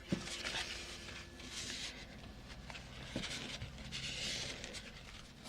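Soft, irregular rustling and rubbing of paper being handled, with a few faint light taps.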